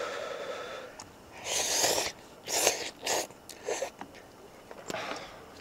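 Hot ramen noodles being slurped off chopsticks: several short, hissing slurps, the longest about one and a half seconds in.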